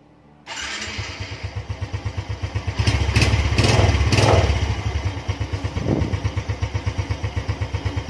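Suzuki Smash 115's single-cylinder four-stroke engine starting about half a second in. It is revved briefly a few times around the middle, then settles to an even, rapid idle pulse.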